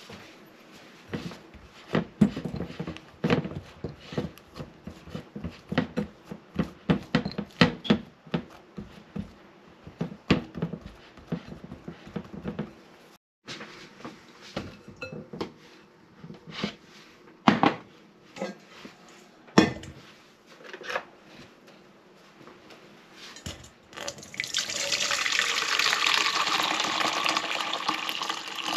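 A quick run of knocks and thuds through the first half, then a few scattered knocks. About four seconds before the end, water starts pouring from a tap into a stainless steel bowl, a steady rush as the bowl fills.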